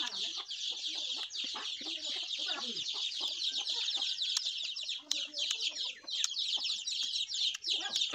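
Chickens clucking in a backyard over a steady, dense high-pitched chorus of rapid chirps.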